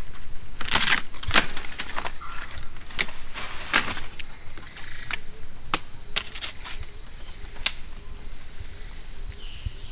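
Rainforest insect chorus: several overlapping steady high-pitched tones, with scattered sharp clicks and knocks at irregular moments.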